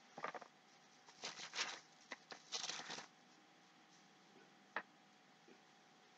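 Faint rustling and handling of packaging and parts while unpacking a boxed set of bookends: a few short rustles over the first three seconds, then a single light click a little before five seconds.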